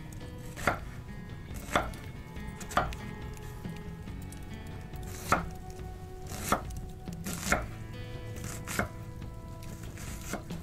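Chef's knife slicing a white onion on an end-grain wooden cutting board: about eight separate knife strikes against the board, roughly a second apart.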